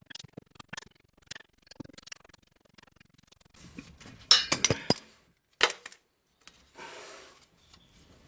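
Hand tools working a nut splitter on a rusted exhaust flexi-pipe bolt: scattered light metal clicks, then a cluster of sharp, loud metal clinks about four to five and a half seconds in, and a short scrape near the end. The splitter prises the nut without undoing it.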